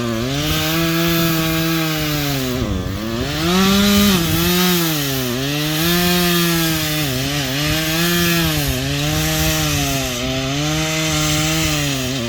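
Chainsaw running at high revs while cutting through a tree, its engine note dipping and recovering every second or two as the chain bites into the wood, with one deeper dip and a brief higher rev a few seconds in.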